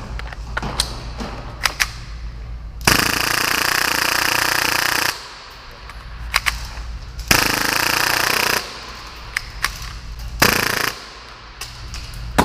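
Full-auto Tokyo Marui Hi-Capa airsoft pistol, tuned to about 30 rounds per second, firing three bursts: a long one of about two seconds, a shorter one, then a brief one. Scattered clicks and taps are heard between the bursts.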